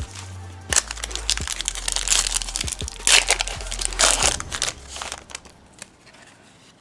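A foil 2015 Upper Deck Football card pack wrapper is crinkled and torn open. The crackling and tearing are busiest in the first four or five seconds, then die down.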